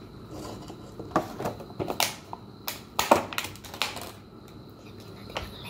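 Thin clear plastic clamshell food container crackling and clicking as it is handled and its lid pulled open, a quick irregular run of sharp clicks lasting about three seconds, with one more click near the end.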